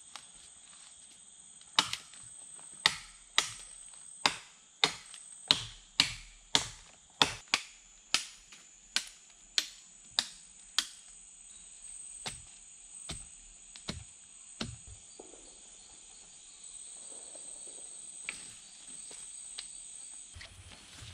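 Repeated sharp chopping strikes on wood, about one and a half a second, stopping about two thirds of the way in. Insects keep up a steady high-pitched buzz throughout.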